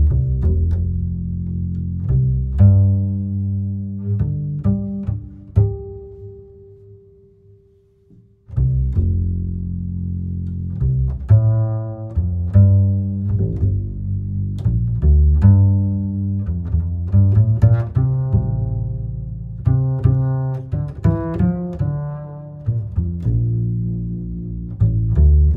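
Background music with low bass notes in a rhythm; it fades out and starts again about eight and a half seconds in.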